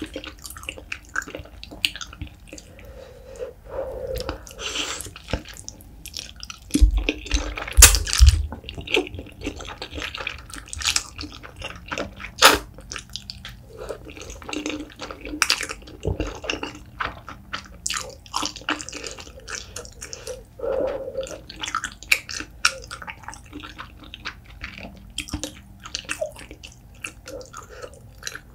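Close-miked chewing of spicy braised beef feet and wide flat noodles: a run of wet, sticky smacks and sharp clicks of the mouth. A low thud comes about seven to eight seconds in.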